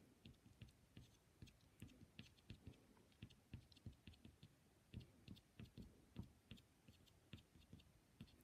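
Faint, irregular light tapping and scratching, a few strokes a second, of a pastel stick being dabbed and stroked onto paper on an easel board.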